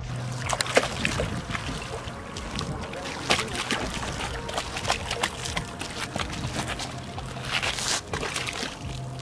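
A hooked fish thrashing at the water's surface, throwing up irregular splashes and slaps against the water.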